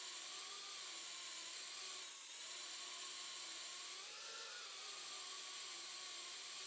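Tiny brushed-motor whoop FPV quadcopter in flight, its propellers giving a steady high whine. The pitch drops briefly about two seconds in as the throttle eases off, then climbs around four seconds in as it throttles back up.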